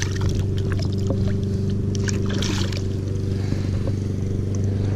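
A steady, even mechanical hum of a running motor, with a few faint clicks and scrapes of handling over it.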